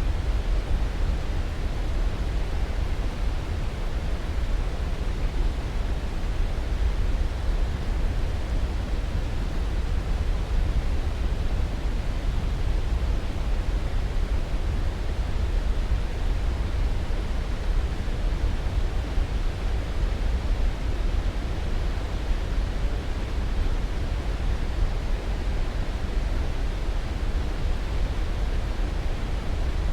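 Continuous sleep-aid noise: an even, unchanging rush with no events in it, heaviest in the low end and thinning toward the highs.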